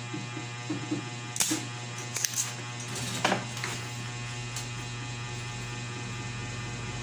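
Steady electrical hum on a repair bench, with one sharp snap about a second and a half in as a spring-loaded desoldering pump fires to suck solder off a resistor's leg, followed by a few lighter clicks and taps.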